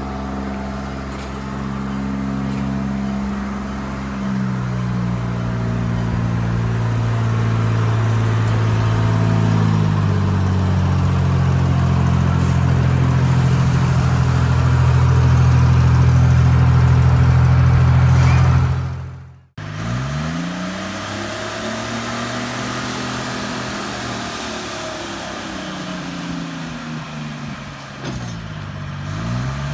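Engine of a small Planet locomotive running under load, its pitch stepping up several times as it revs and gathers speed. After a cut about two-thirds of the way in, the engine note swings down and up in pitch.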